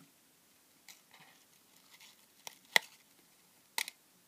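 A few short, sharp clicks and light rustles of hands handling a card wound with 20 gauge Kanthal resistance wire, the sharpest click about two-thirds of the way through.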